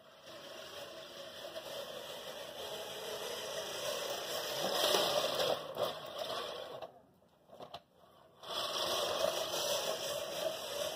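American Lawn Mower Co. 1304-14 five-blade push reel mower being pushed through grass: its spinning reel whirs as the curved blades cut against the fixed blade. It is loudest as it passes close about five seconds in, stops for about a second and a half, then starts again.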